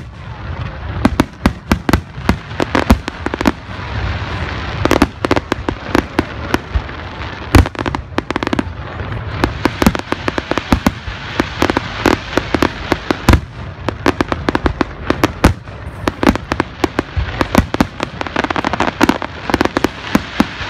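Zambelli aerial fireworks display: shells launching and bursting in a rapid, continuous barrage of sharp bangs, several a second.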